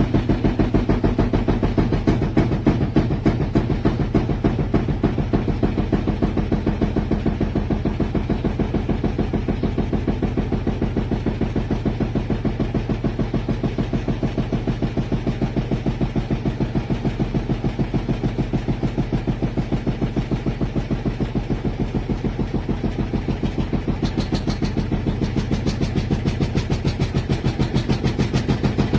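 Front-loading washing machine running, its motor giving a steady low hum with a fast, even pulsing.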